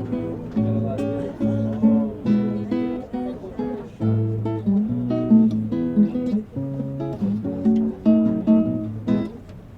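Acoustic guitar playing, chords strummed and plucked in a steady rhythm.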